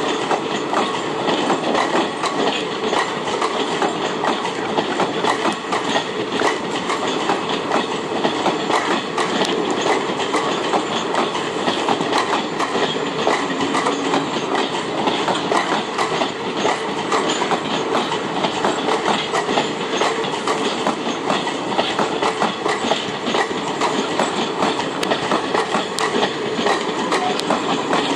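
Long train of Indian Railways passenger coaches rolling steadily past close by, the wheels clicking in a continuous clatter over the rail joints.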